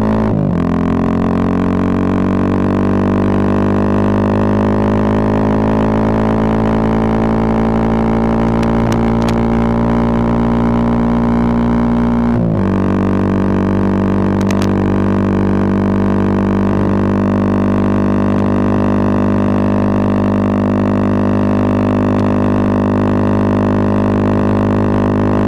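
Bajaj Pulsar 220F's single-cylinder engine running through a Race Concepts full-system exhaust under riding load. Its pitch climbs slowly as the bike accelerates, then drops sharply with a brief break on an upshift about halfway through, and holds steady after that.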